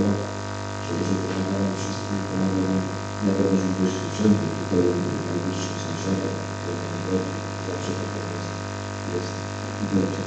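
A man's voice speaking, muffled and hard to make out, over a loud steady electrical hum and buzz from the recording or sound system.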